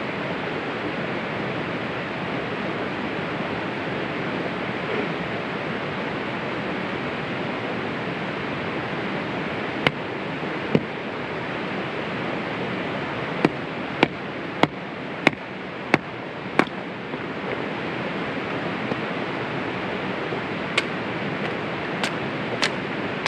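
A steady rushing outdoor noise of weather or water. Over it, a disposable lighter's flint wheel is struck again and again as sharp clicks: a couple on their own, then a quick run of about six a little over half a second apart, then a few more near the end.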